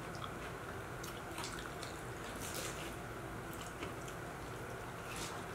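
Soft, wet sounds of quesabirria tacos dipped in consommé being eaten close to the microphone: scattered squishy chewing and smacking clicks, with dripping broth.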